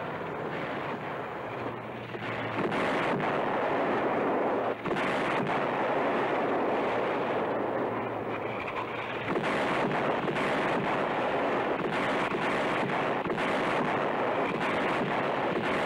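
An army truck engine running, then from about two and a half seconds in a barrage of German 88 mm artillery shells bursting close by, one blast after another in a continuous din.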